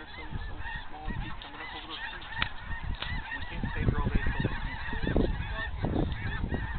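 A huge flock of geese flying overhead, many birds honking at once in a continuous, overlapping chorus. Low buffeting on the microphone grows from about halfway through.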